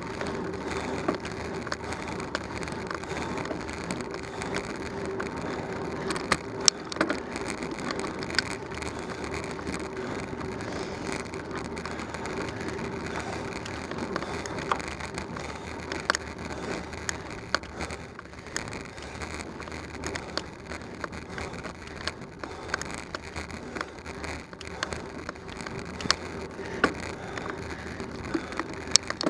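A bicycle riding on a paved road, heard from a camera mounted on the bike: steady tyre and road noise with frequent small clicks and rattles.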